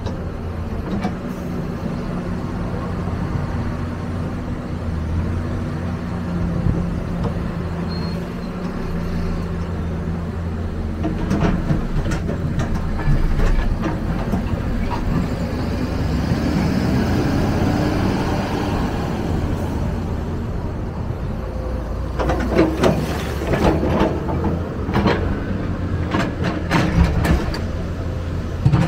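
Excavator's diesel engine running steadily, its note shifting as it works. From about three-quarters of the way in come repeated knocks and clatter of soil and stones being scooped and dumped.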